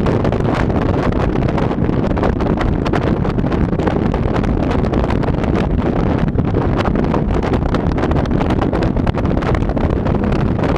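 Wind buffeting the microphone of a camera mounted on the outside of a moving car, over a steady low road rumble.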